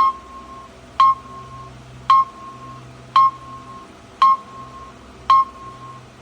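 Electronic buzzer of an Allan 1222 coin timer sounding six short beeps, one about every second, each starting with a click: a countdown or shut-off warning.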